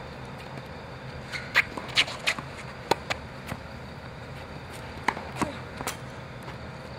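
Tennis rally on a hard court: a scattering of sharp pocks from the ball striking rackets and bouncing on the court, with a few quick footsteps.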